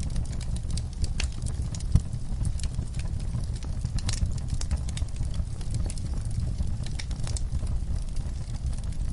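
Campfire (wood fire) crackling: irregular sharp pops and snaps of burning wood over a low steady rumble of the flames.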